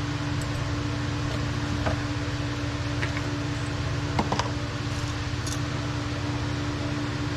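Steady machine hum with a constant low drone, and a few light metallic clicks and taps as brake caliper hardware is handled.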